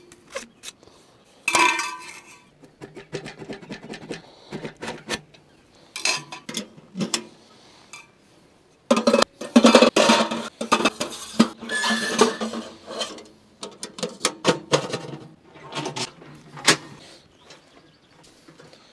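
Sheet-metal stovepipe sections and a portable wood-burning tent stove clanking and clinking as they are handled and packed away, with a dense run of metal knocks and rattles about halfway through.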